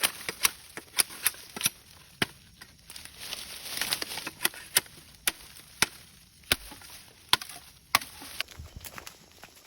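Bamboo being chopped with repeated sharp strikes, irregularly spaced at roughly one to two a second, with a short pause in the middle.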